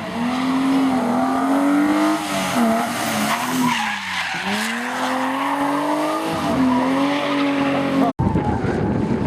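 BMW E30 rally car's engine held at high revs, with the tyres skidding as it drifts. The revs drop sharply about halfway through and climb again. The sound cuts off abruptly near the end, and a different car's engine takes over.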